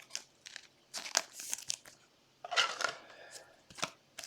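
Trading cards and their packaging being handled, with soft crinkling and rustling and a few light clicks. A longer rustle comes about two and a half seconds in.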